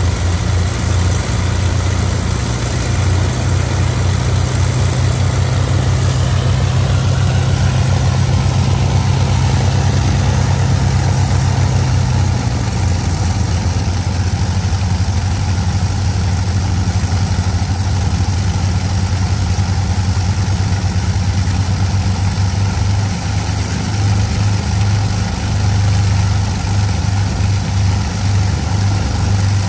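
de Havilland Mosquito's Rolls-Royce Merlin V12 engines running steadily at idle, a loud, low, pulsing drone. The tone shifts slightly about twelve seconds in.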